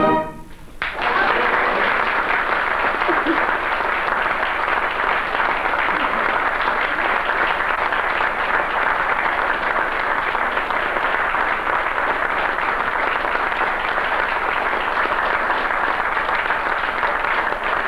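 Audience applauding steadily after the wind band's final chord breaks off, the clapping starting about a second in.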